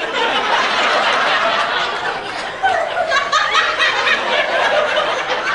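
Audience laughing loudly and at length in response to a punchline, with bursts of louder laughs from about halfway through.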